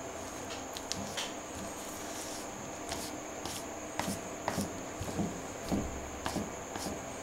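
A paintbrush dabbing wet paint onto a mouse caught in a wooden snap trap, heard as irregular soft taps and squishes of bristles against the trap and the mouse. A steady high-pitched whine runs underneath.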